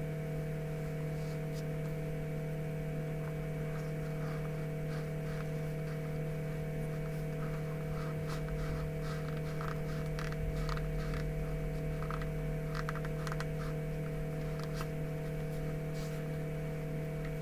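Steady electrical hum, with faint light clicks and rustles of small things being handled.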